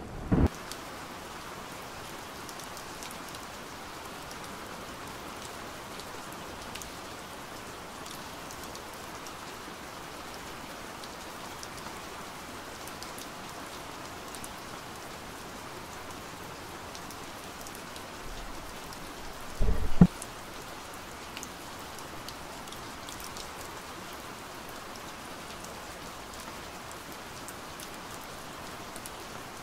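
Steady rain falling, an even hiss with scattered faint drop ticks. A brief loud low thump comes about two-thirds of the way through, and a smaller one right at the start.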